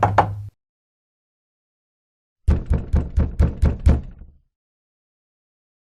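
Knocking on a door: a run of rapid knocks ends just after the start, then after a pause of about two seconds comes a second run of about seven quick, heavy knocks with a deep thud and a short ring after them.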